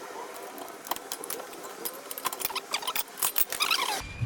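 Irregular light metallic clinks and rattles of hand tools and brake parts being handled while a car's rear brake is taken apart. The clinks get busier in the last second.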